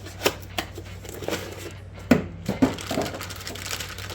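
A new lower ball joint being taken from its packaging: crinkling and rustling with a string of sharp clicks and knocks, the loudest about two seconds in, over a steady low hum.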